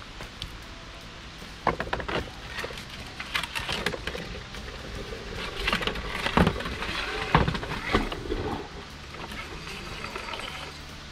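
A flushing sludge bailer being worked up and down on a rope inside a plastic well casing, knocking and clattering irregularly. The knocks come thickest in the middle, with the loudest strikes about six and a half and seven and a half seconds in.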